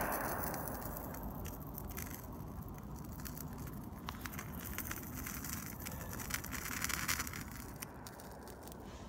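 Small campfire of damp twigs crackling with scattered short pops as it catches from a paraffin-soaked matchbox burning underneath, over a steady low rumble.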